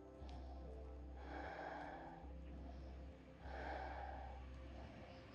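A woman's slow, audible breathing into a close microphone: two soft breaths of about a second each, as she holds a yoga pose.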